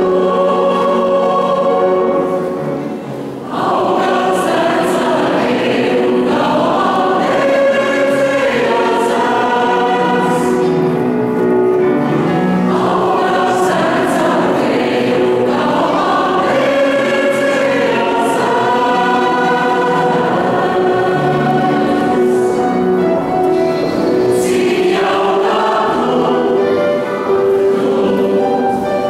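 Mixed choir singing a Latvian song in harmony, holding sustained chords, with a short break between phrases about three seconds in.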